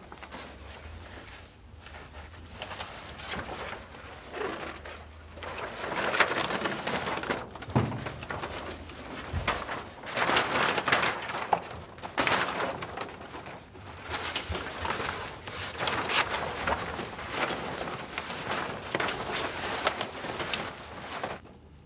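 Vertical blind slats rustling and clattering as people push and pull their way through them. The sound comes in irregular waves that build a few seconds in and stops abruptly near the end.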